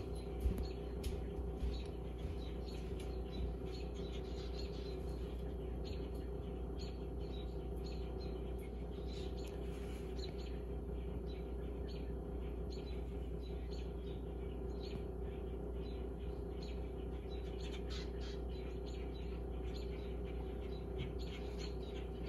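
Many short, sharp alarm calls from common grackles and American robins mobbing a red-shouldered hawk, repeated throughout. A steady low hum runs underneath.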